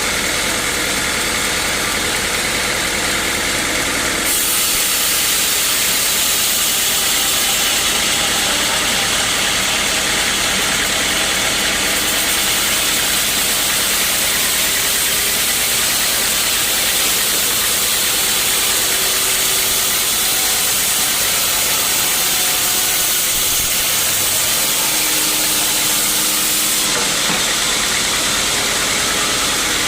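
Sawmill engine running steadily, with a hiss that comes in more strongly about four seconds in and eases near the end.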